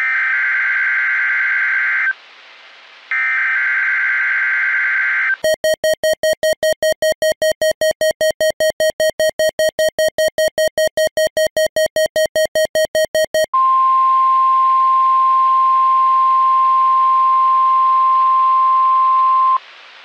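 NOAA Weather Radio test alert as received on a Midland HH54 weather radio. It opens with two screeching SAME data bursts a second apart. Then comes about eight seconds of rapid, evenly pulsed electronic beeping, the radio's test-alert tone, and finally a steady 1050 Hz warning alarm tone held for about six seconds, which cuts off before the test announcement.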